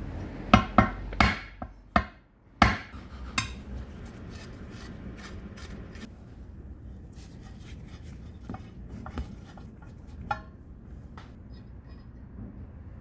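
Metal tool parts knocking and clinking on a workbench as they are handled: about six sharp knocks in the first few seconds, then quieter handling with a few light clicks.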